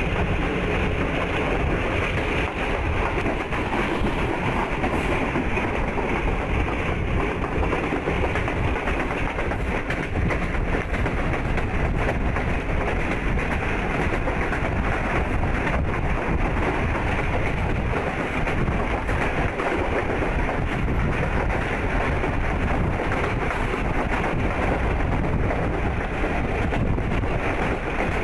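Passenger train running along the track, heard from an open window or doorway of a coach: a steady rumble of wheels on the rails that holds even throughout.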